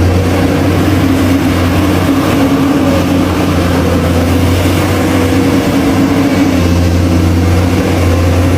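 RC dump truck running with a steady, engine-like low hum that cuts off abruptly near the end.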